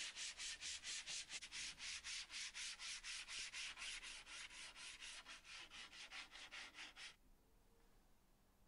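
Sanding block rubbed back and forth over plywood by hand in quick, even strokes, about four to five a second, smoothing the surface; the sanding stops about seven seconds in.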